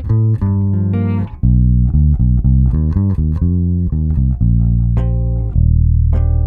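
Electric bass guitar played through a compressor: a run of plucked notes, then a long held low note with a higher note struck near the end and left ringing.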